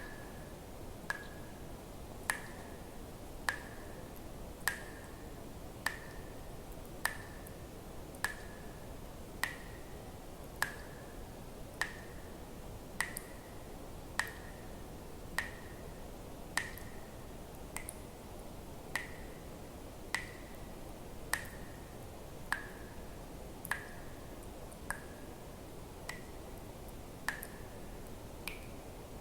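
Water dripping one drop at a time, a regular drip about every 1.2 seconds. Each drop is a sharp click with a short ringing tone; near the end a couple of drops ring higher. A faint steady hiss lies underneath.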